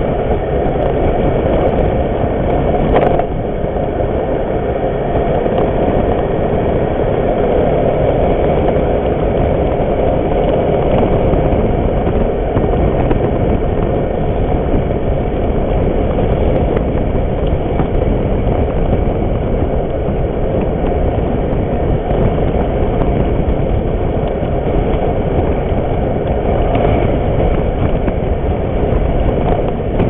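Riding noise of an Aprilia Sportcity scooter under way: a steady rush of wind and engine running, with a brief knock about three seconds in.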